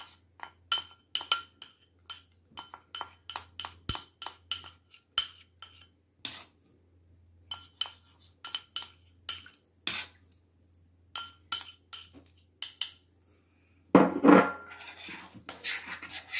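A ceramic bowl tapped again and again on the rim of a metal saucepan to shake out cornstarch: sharp, ringing clinks a few times a second, at an uneven pace. Near the end a whisk starts scraping round the pan.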